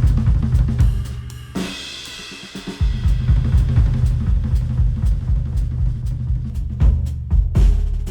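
Instrumental music with a drum-kit beat and heavy bass, played back through headphones and picked up by microphones. The bass and drums drop out briefly about a second and a half in, then the beat comes back.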